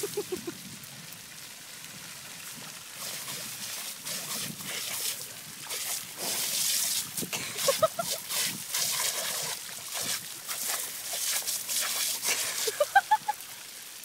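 Water jet from a PVC pipe fountain spraying and splattering as a boxer dog snaps and laps at the stream, with uneven splashy spikes. Short rising squeaky notes come about eight seconds in and again near the end.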